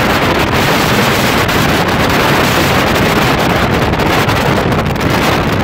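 Steady rush of wind buffeting the microphone as a small open motorboat runs at speed, mixed with the noise of water along the hull.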